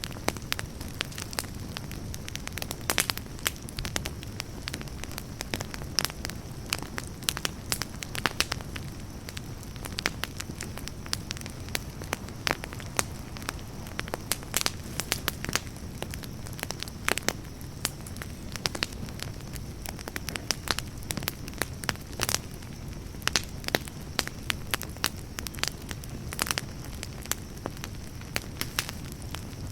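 Campfire burning, with frequent irregular sharp crackles and pops over a steady low rush of flame.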